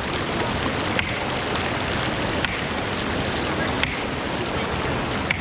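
Waterfall making a steady rush of falling water, broken by brief gaps with small clicks about every one and a half seconds.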